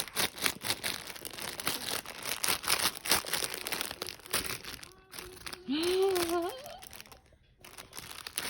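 Crinkly material being crumpled and rustled in many quick crackles. Over halfway through, a baby's short rising vocal sound breaks in, and then the crinkling resumes.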